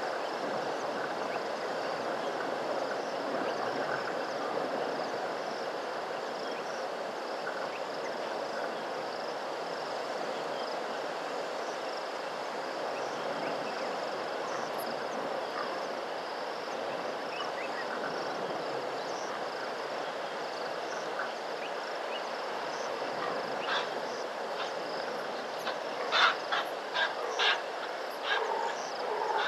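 Steady outdoor background hiss with a faint high, thin band above it. Near the end comes a run of short, sharp animal calls, several in quick succession.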